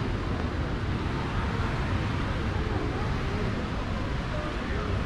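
Steady outdoor city ambience: a low rumble of traffic and wind with faint voices of passers-by.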